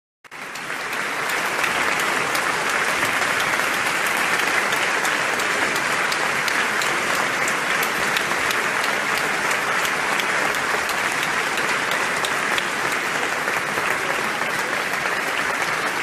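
Audience applause: steady, dense clapping that starts abruptly just after the beginning and holds at an even level.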